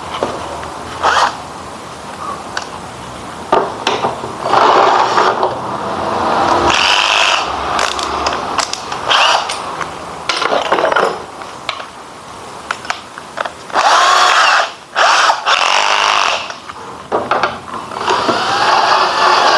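Cordless drill driver running in several short bursts of a second or two, its motor whine rising and falling, as it turns screws in the plastic back cover of a CRT television. Clicks and clatter of tools being handled come between the bursts.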